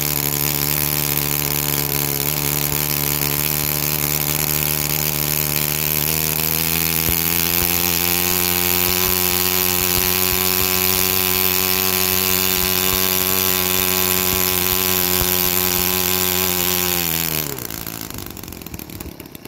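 YS-115 Warbird Special four-stroke glow engine on a model airplane running steadily, its speed rising a little about seven seconds in. Near the end it is shut off and its note drops quickly as the propeller winds down.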